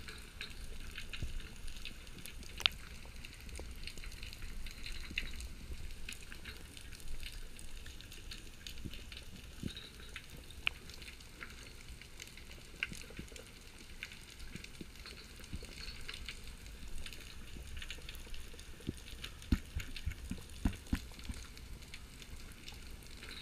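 Underwater ambience over a rocky reef: a steady crackle of many scattered clicks and pops over a low rumble of water, with a few louder knocks near the end.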